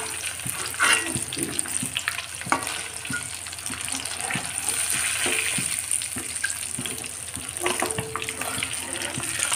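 Rohu fish pieces deep-frying in hot oil in a metal kadhai, the oil bubbling and crackling steadily now that the pieces are crisp. Short clinks and scrapes of a metal spoon against the pan come through it as the fried pieces are lifted out.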